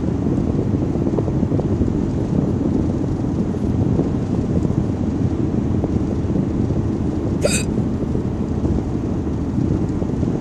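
A person hiccuping once, a short sharp hiccup about seven and a half seconds in, over a steady low rumbling noise.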